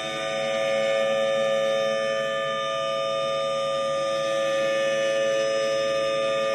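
Federal Signal Thunderbolt 1000T outdoor warning siren sounding a steady tone at full pitch, swelling slightly in loudness about a second in.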